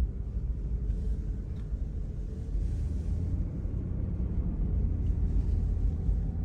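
Steady low rumble of a car driving, its engine and tyres heard from inside the cabin.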